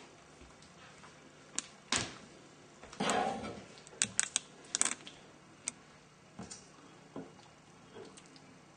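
A spoon clinking and scraping against a frying pan and a ceramic bowl as rice and chicken are served out. Scattered light clicks, a short scrape about three seconds in, and a quick run of clicks a second later.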